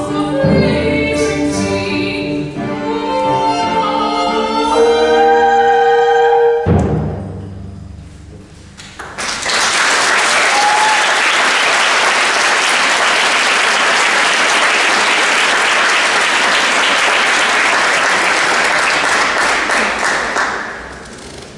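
A women's choir and female soloists with a small chamber orchestra finish a song, cutting off together about seven seconds in. After a short pause the audience applauds for about eleven seconds, fading out near the end.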